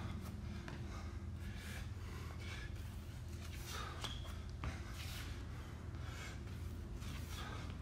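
A man breathing hard after intense exercise, with a loud gasping breath about once a second, over a steady low hum.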